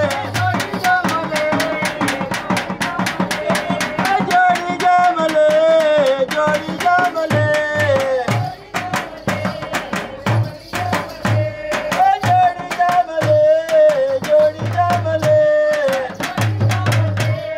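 Live folk dance music: hand drums beating a fast, steady rhythm with deep low strokes now and then, under a high melody line that holds and slides between notes.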